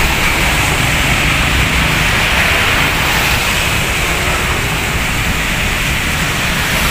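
Steady noise of road traffic on a wet road, tyres hissing on the wet pavement over a low rumble.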